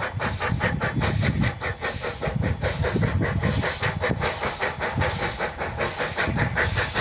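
Steam exhaust beats from an approaching NZR Ww-class steam tank locomotive: rapid, even chuffs several times a second, with hiss over a low rumble of the train.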